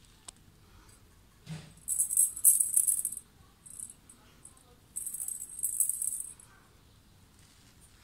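A cat's small plastic ball toy rattling and jingling as the cat bats it, in two bursts of about a second each with a few short shakes between.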